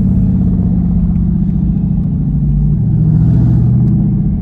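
Dodge Hellcat's supercharged 6.2-litre Hemi V8 running steadily under way, heard from inside the cabin; the engine note steps down in pitch about two-thirds of the way through.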